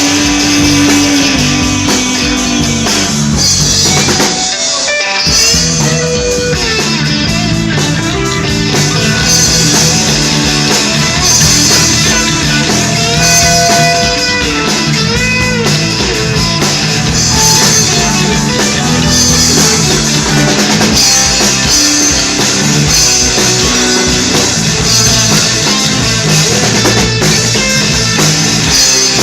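Rock band playing live: an instrumental passage of guitars and drum kit after a sung chorus, with a short break in the bass and drums about four seconds in.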